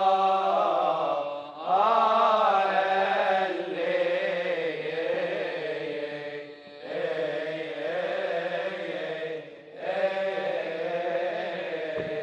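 Coptic liturgical chant of the Gospel: a male voice drawing out long, ornamented melismas on single vowels, with short breaks for breath about four times.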